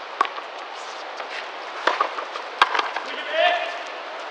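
Sharp knocks of a frontenis ball on racquets, wall and court floor: a few scattered impacts, the loudest about two and a half seconds in. A short shout comes near the end.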